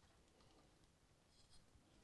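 Near silence, with a few faint light ticks about one and a half seconds in from an Allen wrench winding a small set screw into an AR trigger assembly.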